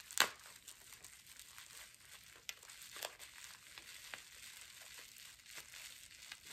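Soft crinkling and rustling of packaging as small items are handled and unwrapped, with a sharp click just after the start and scattered light ticks after it.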